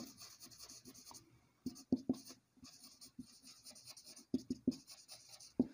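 Marker pen writing on a whiteboard: a run of short scratchy strokes with a few sharper taps of the tip.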